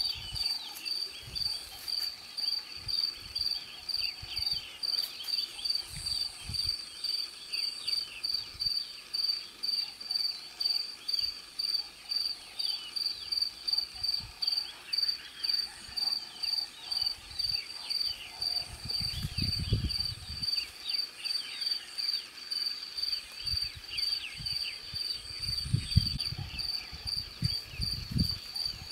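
Insects chirping steadily in a high, pulsed note about twice a second, with fainter high chirps underneath. Low rumbles come at about two-thirds of the way in and again near the end.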